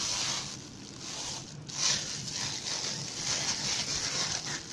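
Thin plastic carrier bag rustling and crinkling as it is handled and held open, in several uneven swells, the loudest about two seconds in.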